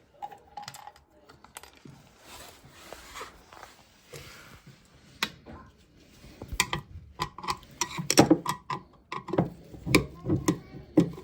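Knocks, clicks and rattles as a concealed toilet's boxing panel is worked loose and pulled off. The knocking is sparse at first, then comes thicker and louder through the second half.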